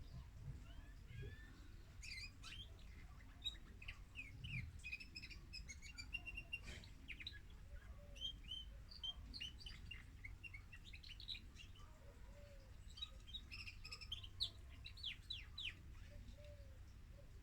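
Female domestic canary singing male-style song, faint: quick chirps and rapid trills in short phrases with brief pauses.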